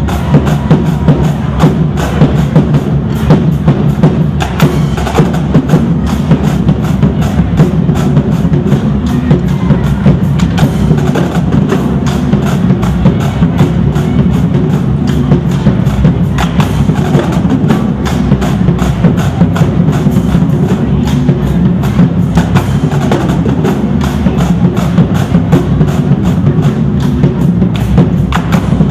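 Marching drumline playing a cadence together: snare drums, tenor drums and bass drums struck in fast, steady strokes.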